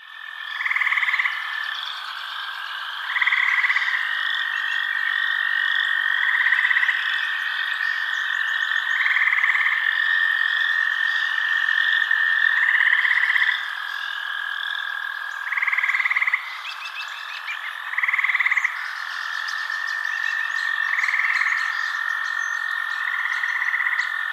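Frog chorus: a steady high trill runs underneath, with louder pulsed croaking calls every two to three seconds.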